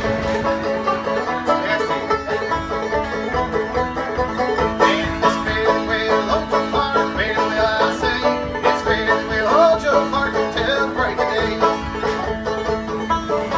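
Bluegrass music with a fast-picked banjo and guitar, at a quick, even beat.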